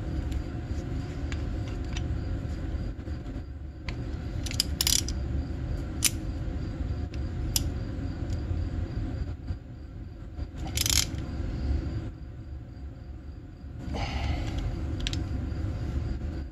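Hands handling oil hoses, a small oil injection pump and a tool on a workbench: scattered clicks and short scrapes, the loudest a few seconds in and again about eleven seconds in, over a steady low rumble.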